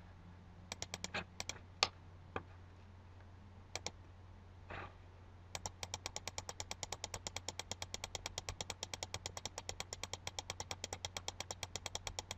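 Computer mouse button clicking: a few scattered clicks, then from about halfway a fast, even run of about five clicks a second, as one button is clicked over and over. A faint, steady low hum runs underneath.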